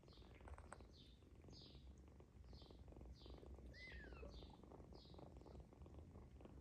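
Faint purring of a mother cat as she licks her kittens, with soft rasping licking strokes about every half second. A kitten gives one brief high squeak that falls in pitch about four seconds in.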